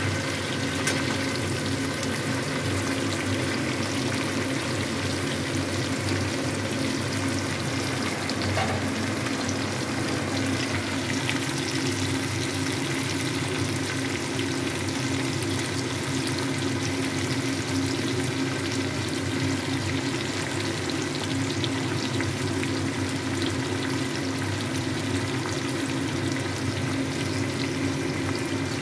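Chunks of green mango frying in mustard oil in a steel kadai: a steady sizzle as the oil bubbles around them, cooking until their colour changes. A steady hum runs underneath.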